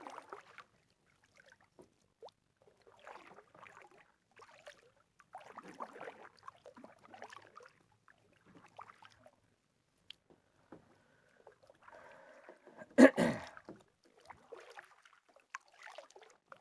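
Kayak paddle strokes: the blades dip and splash softly in calm water every second or two, with drips between strokes. One loud thump stands out near the end.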